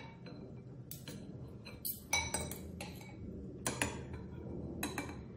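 Metal forks and spoons clinking and scraping against ceramic soup bowls as two people cut into beef meatballs in broth: a dozen or so sharp, irregular clinks.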